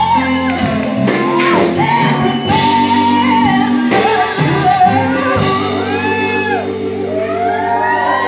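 Live band playing: a woman sings into a microphone over drums and electric bass guitar, holding long notes.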